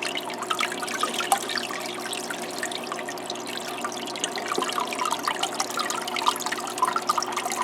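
Small aquarium waterfall running: water trickling and splashing off a stone into the tank, steady throughout, with a faint steady hum underneath.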